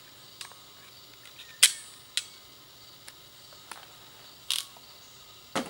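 About seven sharp, separate clicks and snaps, the loudest about one and a half seconds in: a wire crimper and plastic butt connectors being handled while wiring a trailer plug.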